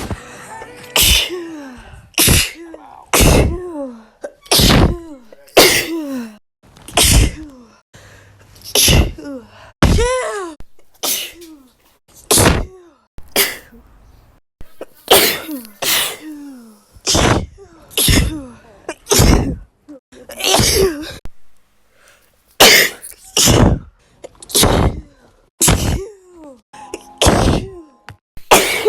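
A woman sneezing over and over: about two dozen separate sneezes cut one after another, roughly one a second. Each is a sharp burst, many with a voiced cry that falls in pitch.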